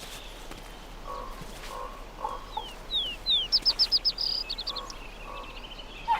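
Wolf pups whimpering in short, repeated squeaks, with a songbird singing a few quick falling notes and then a rapid trill in the middle.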